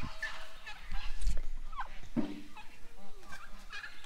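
Domestic turkeys calling: a series of short calls that glide up and down in pitch, with a lower call about two seconds in. A few knocks come from plastic poultry waterers being handled.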